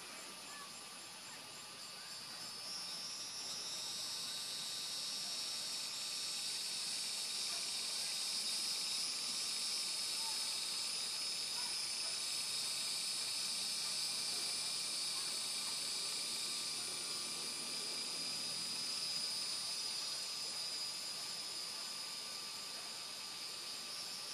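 Steady, high-pitched buzzing chorus of insects that swells about two to three seconds in and then holds, easing slightly near the end.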